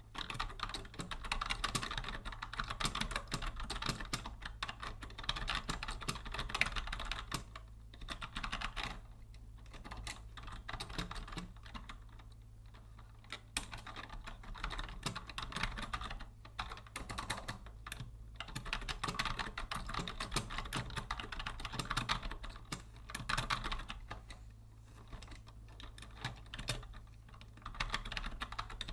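Continuous typing on a vintage Logitech Deluxe 104 wired keyboard: fast, dense key clicks in runs, easing off to lighter, sparser keystrokes for short stretches before picking up again.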